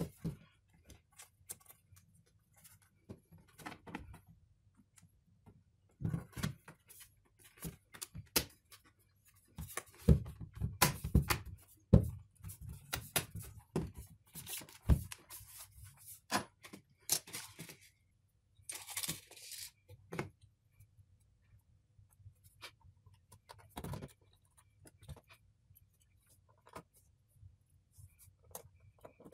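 Handling noise from reassembling a tablet: the back cover is laid on and pressed down onto the frame with a string of clicks, taps and knocks, loudest in a dense cluster about ten to thirteen seconds in. A brief scraping rustle comes a little later, and scattered light clicks follow as small parts are handled.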